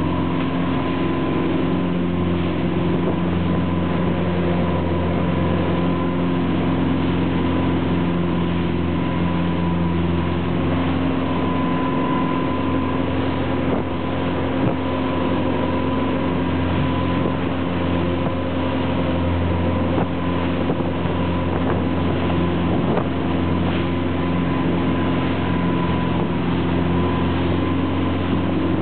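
Fishing boat's engine running steadily with a constant drone, under the rush of churning water and spray from the wake as the boat runs through rough seas.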